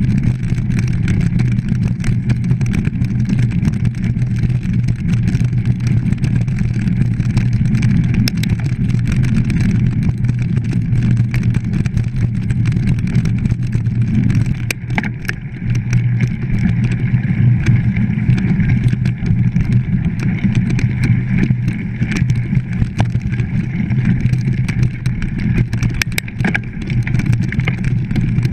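Mountain bike ridden over a bumpy dirt and grass track, heard through an action camera: a steady low rush of wind on the microphone and tyre rumble, with scattered sharp knocks and rattles from the bike and camera mount going over bumps.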